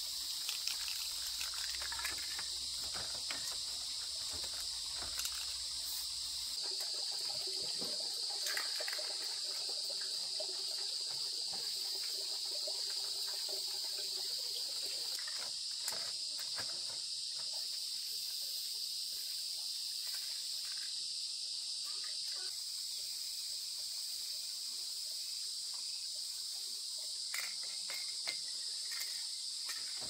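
Steady high-pitched insect chorus, with scattered light clicks and knocks.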